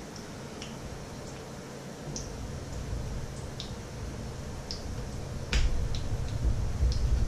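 Hot oil spitting and popping in irregular single clicks, a few a second, under batter patties frying in a pan. A low rumble builds partway through, and a sharp knock sounds about five and a half seconds in.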